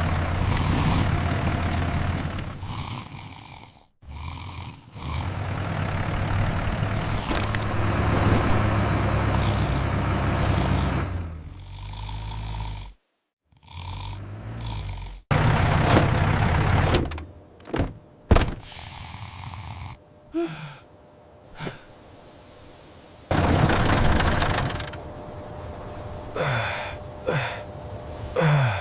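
Toy tractor engine sound effect running in several stretches, each cut off abruptly, mixed with short thuds and other brief effects in the second half.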